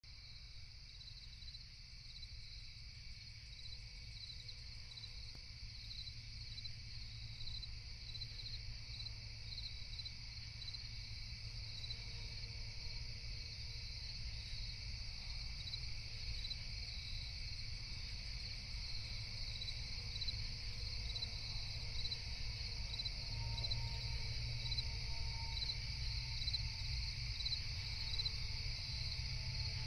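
Crickets chirping steadily in a high, even trill with regular repeating chirps, over a low drone that swells gradually louder.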